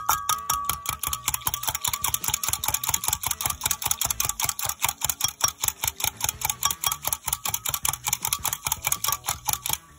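A wire whisk beating a frothy coffee-and-milk mixture in a glass measuring jug, its wires clicking against the glass in a rapid, steady rhythm that stops just before the end.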